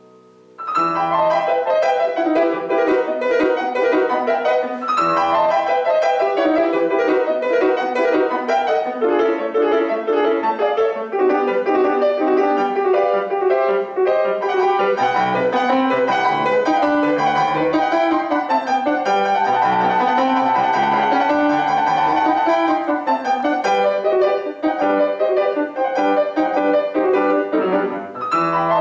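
Solo grand piano playing a fast classical piece. After a faint held chord, loud rapid passages of notes begin about a second in and carry on without a break.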